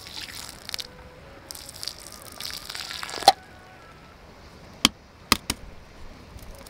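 Liquid poured from a drink can splashing onto sandy ground in an uneven, hissing stream that ends with a sharp knock about three seconds in. A few sharp clicks follow near the end.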